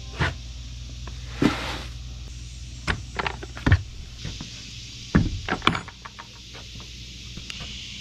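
A metal scoop knocking and scraping in a plastic bucket of dry dog kibble, with about half a dozen sharp clatters and a short rush of pouring kibble. A low steady hum lies underneath and fades about two thirds of the way through.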